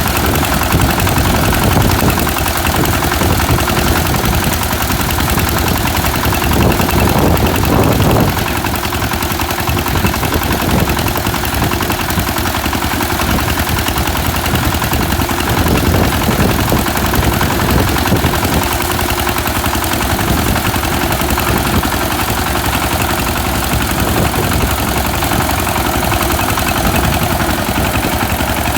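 Small engine of a locally built rice-harvesting machine, running steadily and loudly. It grows briefly louder about seven seconds in.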